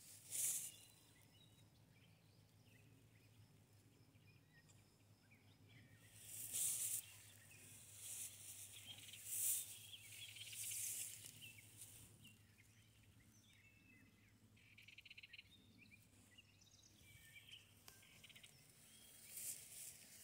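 Faint rustling of footsteps through grass and brush, in a few short bursts about six, nine and eleven seconds in and again near the end, with scattered small high chirps in between.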